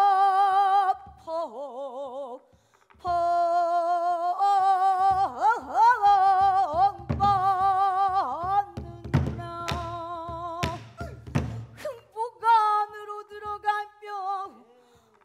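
Pansori singing: a female voice holds long, sorrowful notes with a wide, wavering vibrato in the gyemyeonjo mode, breaking off briefly a couple of seconds in. Sharp strikes on the buk barrel drum punctuate the singing, most of them in the middle of the passage.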